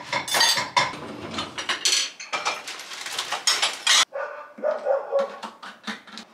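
Plates and cutlery clattering as they are loaded into a dishwasher's racks. About four seconds in this gives way to sparser clicks at the detergent dispenser in the door, along with a few short high-pitched squeaks.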